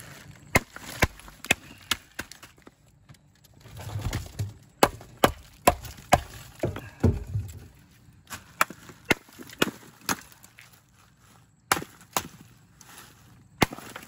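Ice being smashed into chunks with sharp knocks, in runs of three to five blows about half a second apart, with some rustling of plastic bags and ice between runs as the chunks go into a foam cooler over the bagged catch.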